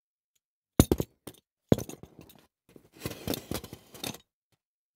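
Hard props handled on a foley table: a quick run of sharp knocks and clinks, then a rough scraping rattle lasting about a second near the end.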